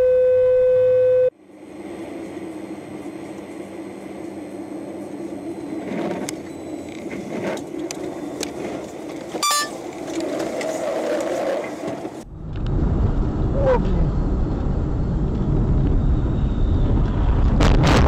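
Road and engine noise of cars driving, heard from inside the cabin on dashcams. It opens with a loud steady tone that stops abruptly about a second in, there is a sharp click about nine seconds in, and the rumble gets louder and deeper from about twelve seconds.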